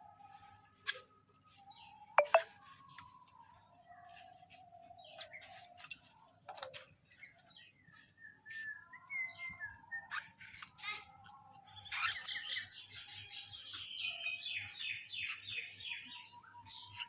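Birds chirping and calling, with a fast run of repeated high notes in the last few seconds. A few sharp knocks cut through, the loudest about two seconds in.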